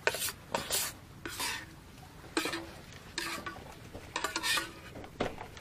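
A metal ladle scraping and clinking against a camping cooking pot while cooked instant noodles are scooped out, about seven strokes. A few strokes leave a short ring from the pot.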